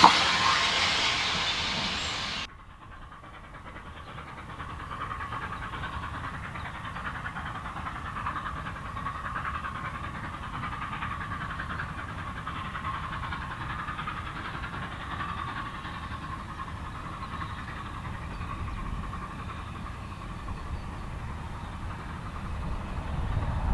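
A train running past close and loud, cut off abruptly about two and a half seconds in. Then a much quieter, steady rumble and hiss of a distant train, growing slightly louder near the end.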